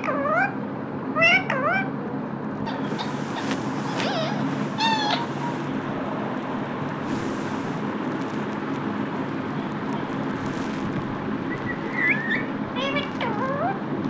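Rose-ringed parakeet giving short, squeaky chattering calls that swoop up and down in pitch, in clusters at the start and middle, then a pause of several seconds before more near the end. A steady low hum runs underneath.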